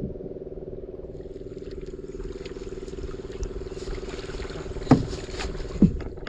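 A small boat engine running steadily with a fast, even pulse, joined near the end by two splashes of a wooden paddle dipping into the water.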